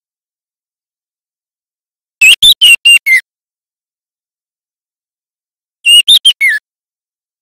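Juvenile white-rumped shama (murai batu trotol) giving two short bursts of loud whistled notes, about two seconds in and again about six seconds in. Each burst is about five quick notes, the last one sliding down in pitch. This is a young bird still learning its song.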